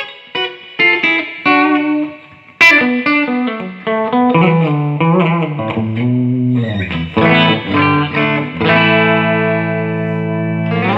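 Electric guitar played through a mid-90s Fender Hot Rod Deville 2x12 tube amp, freshly serviced with new 6L6GC power tubes, 12AX7 preamp tubes and filter caps: a run of picked single notes, a sharp struck chord about two and a half seconds in, then chord playing that ends on a held chord ringing out.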